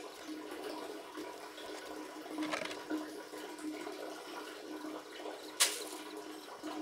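Uncooked rice scooped with a small bowl from a woven basket and poured into a plastic basin: a steady grainy rushing hiss, with a sharp click a little past halfway.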